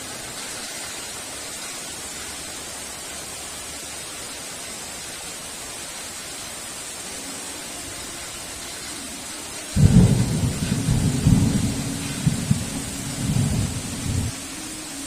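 Steady heavy rain, with a sudden loud thunderclap about ten seconds in that rumbles in waves for about four seconds before cutting off suddenly.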